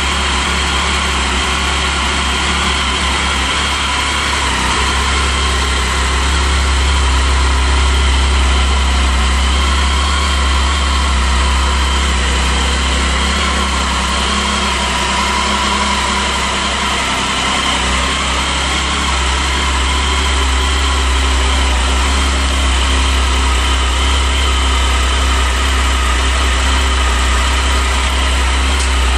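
Triumph Tiger 1050's three-cylinder engine idling steadily.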